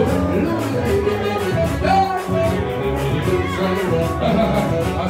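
Live band music: a male singer with electric bass and guitar, playing over a steady beat.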